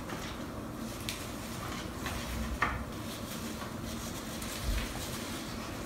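Light handling sounds as a eucalyptus bundle is hung on a metal chandelier: a few soft clicks, the sharpest about two and a half seconds in, and a low thump near the end, over steady room hiss.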